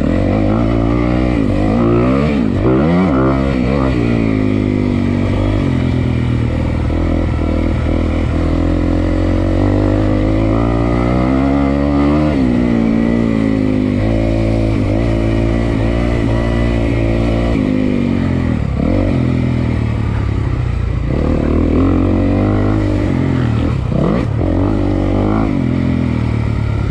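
The 2022 Honda CRF250R's single-cylinder four-stroke engine, heard on board while the dirt bike is ridden hard. It revs up and falls back again and again as the throttle is opened and closed.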